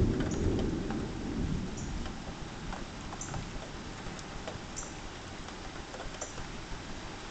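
Thunder rumbling and dying away over the first second or so, leaving steady rain with scattered drips. A short high chirp repeats about every second and a half.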